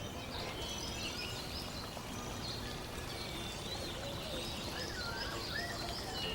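Birds chirping in short, quick runs of high calls over a steady outdoor hiss, like a nature ambience bed.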